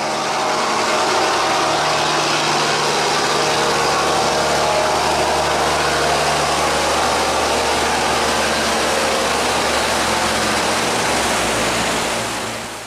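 Loud rush of churning water mixed with the steady hum of a sand barge's engine as it pushes through a sluice gate against a strong current. The sound fades near the end as the barge moves off.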